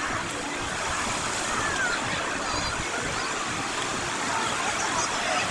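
Sea waves washing onto a sandy beach: a steady hiss of surf, with faint distant voices.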